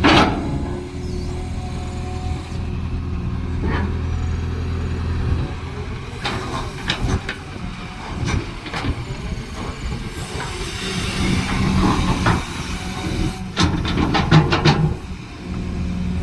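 Cat excavator's diesel engine running steadily while it digs, with scattered sharp knocks and a quick run of several knocks near the end.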